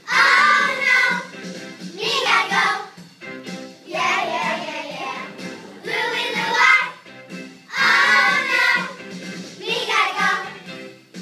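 Young children singing a song with instrumental accompaniment, in sung phrases about every two seconds over the steady backing.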